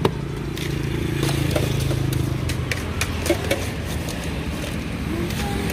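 A passing motorcycle's engine hums steadily for the first two and a half seconds or so, then fades. Scattered light clicks and knocks come from a plastic drink shaker and cups being handled.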